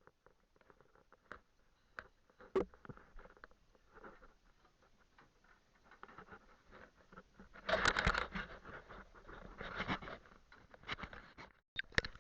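Light scattered taps, scuffs and rubbing of a person moving about and handling things in a boat's engine room. Louder bursts of scraping come about eight and ten seconds in.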